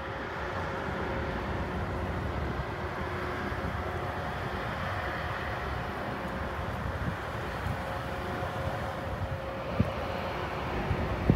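Steady distant engine drone with a faint constant hum, under wind buffeting the microphone; a short thump about ten seconds in.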